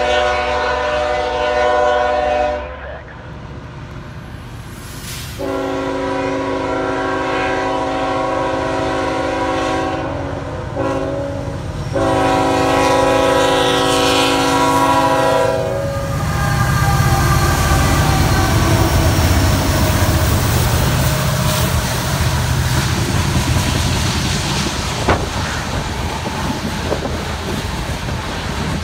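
Norfolk Southern locomotive air horn sounding several tones at once, ending a blast. After a short break a second NS train's horn gives a long blast, a short one and another long one as it nears a grade crossing. From about 16 seconds in, a loaded coal train's hopper cars roll past with a steady rumble and wheel-on-rail clatter.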